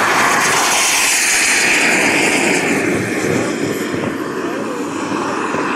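Jet Italia Atom 250 turbine of a model F-16 jet, a loud rushing whine as it makes a fast low pass. The pitch drops as it goes by in the first two to three seconds, then it grows a little fainter as the jet climbs away.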